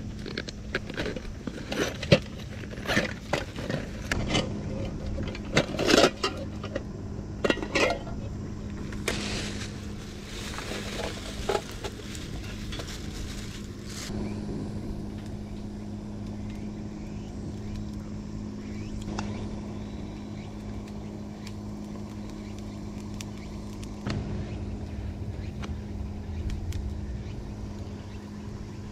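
Camping gear being handled by hand: a bag's buckle and flap worked open and an aluminium mess tin taken out, with rustling and a run of sharp clicks and knocks over the first dozen seconds, then quieter handling and small clinks. A steady low hum lies underneath.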